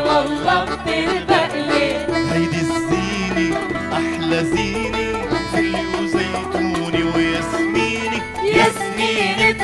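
A live Arabic folk-song ensemble: a man sings into a microphone over accordion, plucked buzuq and qanun, bass, piano and hand percussion (riq and tabla), all playing steadily together.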